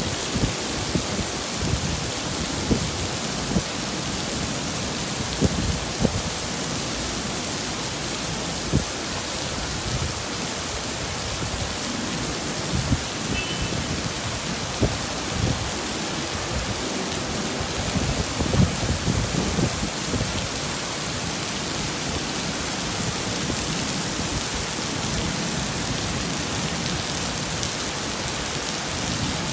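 Heavy tropical rain pouring steadily onto pavement and a flooded street, a dense even hiss. Short sharp thumps break through it now and then, thickest near the start and around two-thirds of the way through.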